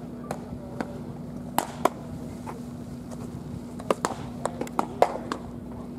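Baseballs smacking into leather gloves during a warm-up game of catch: sharp, irregular pops, several in quick succession from about four seconds in. A steady low hum runs underneath.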